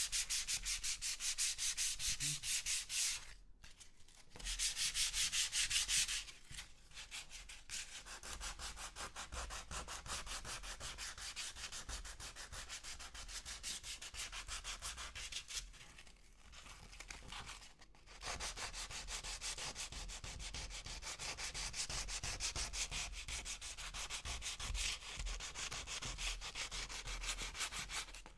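Sandpaper scratching back and forth on wood in quick, even strokes, with two short pauses.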